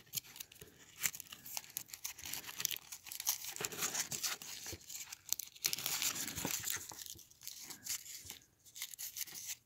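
Thin foil wrapper of a Hershey's dark chocolate Kiss being picked open and unwrapped by hand: irregular crinkling and crackling foil with small tearing sounds.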